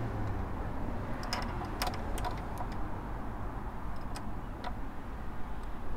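A few light, scattered metallic clicks and ticks from a spanner working the bleed nipple on a motorcycle front brake caliper while the brake is being bled, over a steady low background hum.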